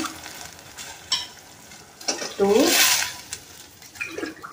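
Water poured from a glass into a hot pressure pan of fried vegetables. It splashes in with a rising gurgle about two and a half seconds in and sizzles against the hot oil, with a light knock about a second in and a shorter gurgle near the end.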